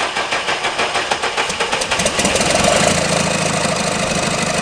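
Cummins 3.8 diesel being cranked over on the starter, with an even rhythmic pulse; about two seconds in it turns into a steadier, louder drone. It is being cranked to push diesel through and bleed air from the fuel system after failing to start.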